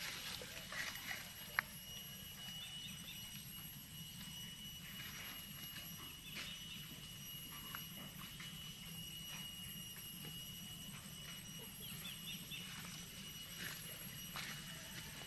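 Quiet outdoor ambience: a steady high-pitched whine with a few faint chirps and rustles, and one sharp tick about a second and a half in.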